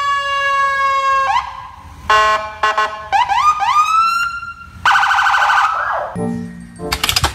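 Police patrol car's electronic siren stepping through its tones: a long steady tone, then a run of short rising sweeps, a fast pulsing tone, and a falling glide. Near the end it gives way to a low buzzing tone and a brief loud burst of noise.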